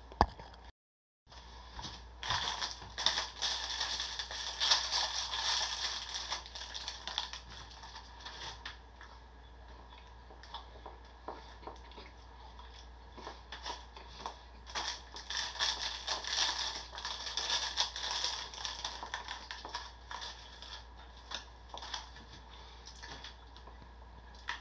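Crinkling and rustling of a plastic bread wrapper in two spells of crackly bursts, a few seconds in and again past the middle, with scattered small clicks between. At the very start there is a sharp knock from the phone being handled, then a brief dropout.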